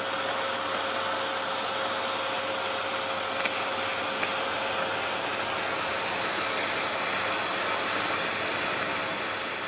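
Vacuum cleaner running steadily: an even rush of suction with a constant motor whine.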